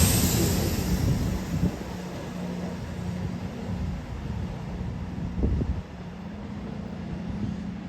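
A train's noise fading away after it passes, leaving a low steady hum and rumble. Dull knocks come about a second and a half in and again about five and a half seconds in.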